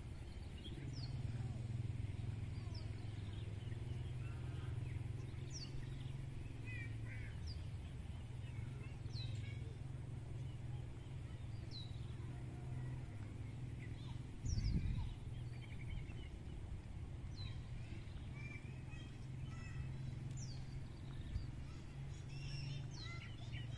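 Small birds chirping on and off, short high calls that drop in pitch, over a steady low hum. A brief low thump comes about fifteen seconds in.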